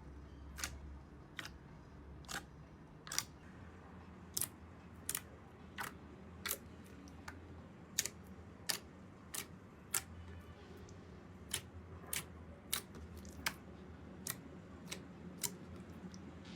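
A steady series of sharp clicks, about three every two seconds, over a faint low hum.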